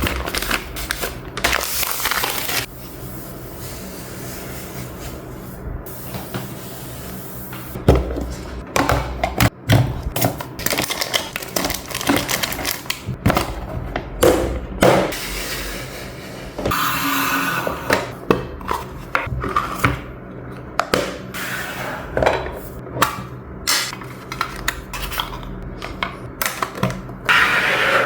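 Objects being picked up, moved and set down on a desk during tidying: irregular clicks, knocks and clatters with rustling and scraping between them, and a longer stretch of rustling past the middle.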